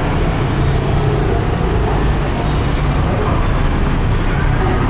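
Steady road traffic with engines running, a continuous low rumble.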